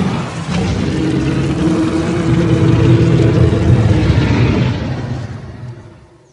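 A designed Giganotosaurus roar sound effect: one long, low, rough roar that fades out near the end.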